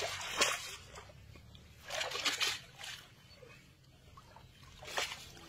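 Water sloshing and splashing as a wet cast net is pulled out of shallow water and gathered by hand, in three short bursts: near the start, around two seconds in and about five seconds in.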